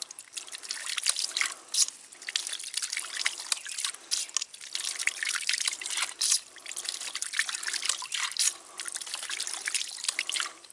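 Water spurting and splashing in irregular bursts from a hydraulic ram pump's brass waste valve as it is pushed down by hand again and again. This is the pump being primed, each stroke helping it build pressure until it cycles on its own.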